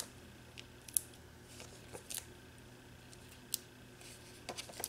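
Faint, scattered clicks and light rustles of cardstock and paper being handled as small foam adhesive dots are placed and pressed onto a die-cut card piece. The sharpest click comes about a second in and another about three and a half seconds in.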